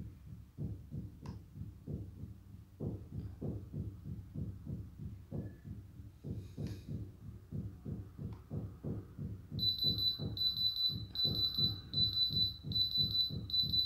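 Diamond Selector II thermal diamond tester beeping in a steady high-pitched series of about two beeps a second, starting about two-thirds of the way in, as its probe on the stone reads diamond. A low, fast pulsing runs underneath throughout.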